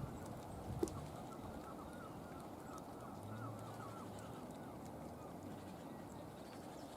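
A bird calling faintly: a quick run of short, repeated notes over a steady background hiss for about three seconds. A single sharp knock comes just under a second in.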